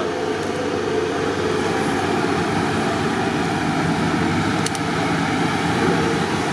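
Off-road trophy buggy engines running steadily, a continuous even drone with no revving.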